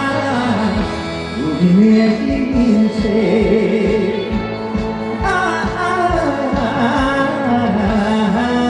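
Live trot music over a stage sound system: a steady drum beat under a gliding, wavering lead melody.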